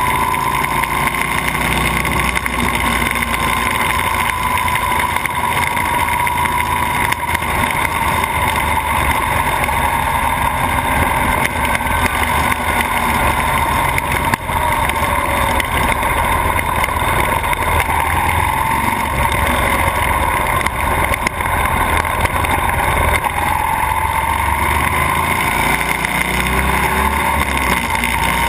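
Buell XB12S's air-cooled 45-degree V-twin running under way, heard through a GoPro in its housing along with wind rush; the engine note rises and falls gently as speed changes.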